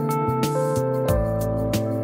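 Background music: an instrumental track with sustained melodic notes over a steady beat.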